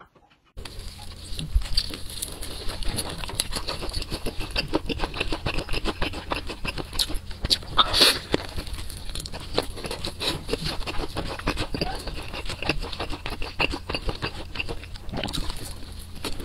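Close-up crunching and chewing of crispy fried chicken in a sticky sauce: a dense run of sharp crackles starting about half a second in, with one especially loud crunchy bite about eight seconds in.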